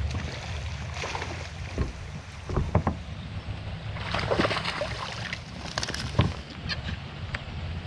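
Short water splashes and knocks against a kayak as a hooked bass is brought in, over a steady low rumble of wind on the microphone.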